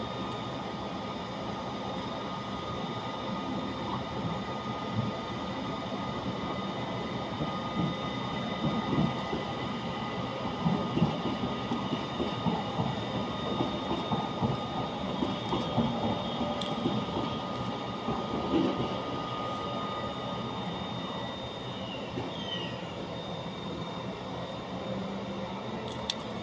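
Train running along the track, with a steady high whine and wheels clattering over the rail joints. The clatter is heaviest in the middle, and the whine fades out near the end.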